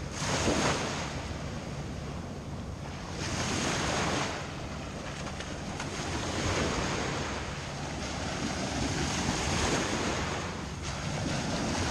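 Small surf waves breaking and washing up the sand at the water's edge, a swell of hiss about every three seconds. Wind rumbles on the microphone underneath.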